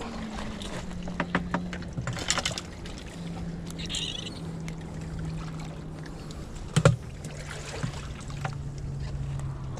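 Clicks, rattles and knocks of a just-caught fish being handled and unhooked on the rocks, with one sharp knock about seven seconds in. Under them runs a steady low motor hum that slowly drops in pitch.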